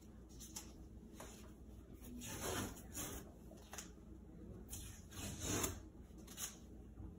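Painter's tape being peeled off window glass in several short, faint pulls.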